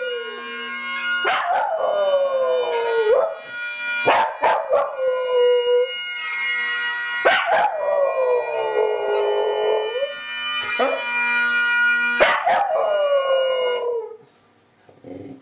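Tibetan terrier howling along with Scottish Highland bagpipe music: several long howls, each sliding down in pitch, over the steady drone and chanter of the bagpipes. Near the end the bagpipes and the howling stop.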